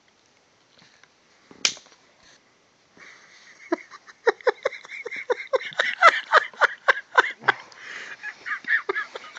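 Someone chewing a crunchy cookie right at the microphone: a quick, irregular run of crunching and smacking mouth sounds, about three or four a second. A single sharp click comes just before the chewing starts.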